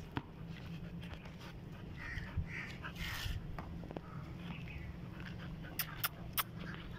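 A dog panting faintly over a low steady rumble, with three sharp knocks close together near the end.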